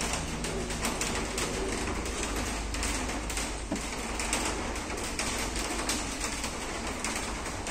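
Birds calling over a steady low background hum, with scattered light clicks.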